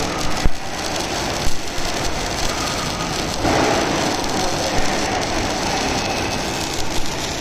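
Welding arc crackling and hissing steadily as a welding carriage runs a weld, with a few sharp pops.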